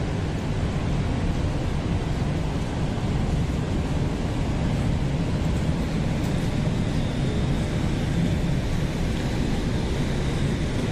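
Steady low rumble of an underground metro station platform with a metro train standing at it. A faint high tone joins about halfway through.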